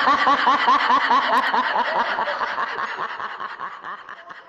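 Laughter sound effect: a rapid snickering laugh of about four chuckles a second, fading steadily away and stopping near the end.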